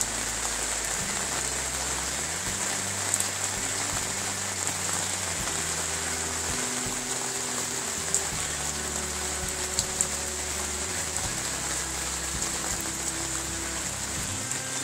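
Steady outdoor noise: an even hiss with a constant high buzz above it, a low hum underneath and a few faint ticks.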